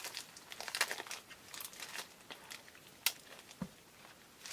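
Packaging being unwrapped by hand: irregular crinkling and rustling, busier in the first half and thinning out later, with a soft low thump about three and a half seconds in.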